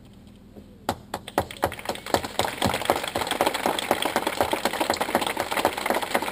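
Crowd applause: a few scattered claps start about a second in and quickly swell into steady, dense clapping.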